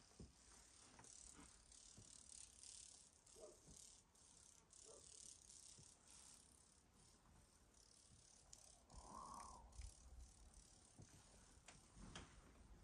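Near silence: faint room tone with a light hiss and scattered small ticks and knocks.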